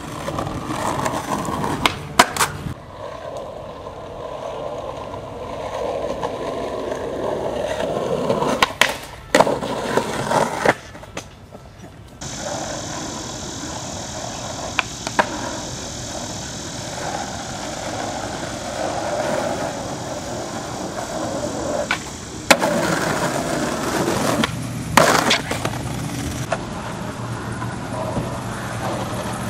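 Skateboard wheels rolling over pavement, with several sharp clacks of the board popping and landing, the loudest a little after the middle.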